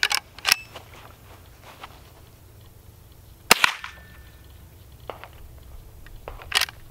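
Two sharp cracks of a Henry H001 lever-action rifle firing .22 LR, about three seconds apart, the first followed by a brief ring of a steel target being hit. A couple of metallic handling clicks come right at the start.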